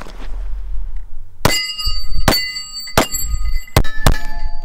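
Five pistol shots from a Smith & Wesson M&P semi-automatic, fired in quick succession starting about a second and a half in, each followed by a brief ringing.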